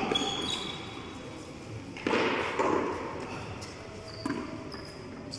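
Tennis ball struck by hand and smacking against the frontón's concrete wall and floor during a rally: a few sudden impacts, the loudest about two seconds in and a smaller knock a little after four seconds.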